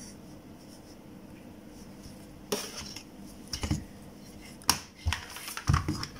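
A run of sharp knocks and clicks from a printed circuit board and multimeter test probes being handled on a tabletop, starting about halfway in, about six in all.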